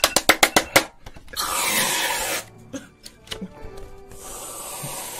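A quick run of hand claps, then an aerosol whipped-cream can hissing in two sprays: a short loud one about a second and a half in and a longer, weaker one from about four seconds in.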